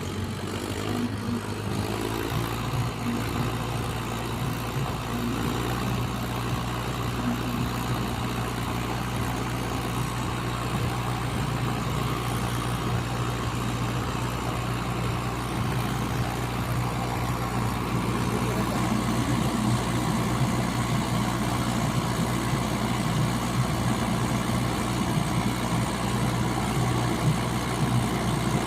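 Heavy diesel engine of an earthmoving machine running steadily, growing a little louder toward the end.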